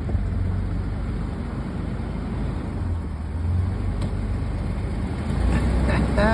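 A motor vehicle's engine running with a low, steady drone under road or trail noise, growing louder about five and a half seconds in.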